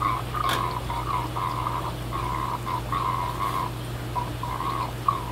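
Aquarium water trickling and gurgling in irregular short spurts over a steady low hum of fish-room pumps, with a single click about half a second in.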